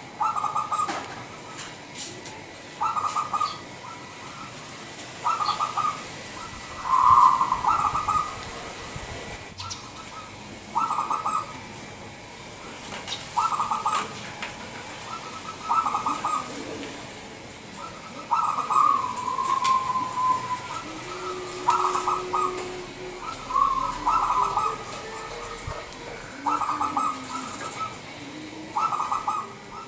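Zebra dove (Indonesian local perkutut) singing its cooing phrase over and over, one short phrase about every two to two and a half seconds. The loudest phrase comes about seven seconds in, and one phrase near the middle trails on longer.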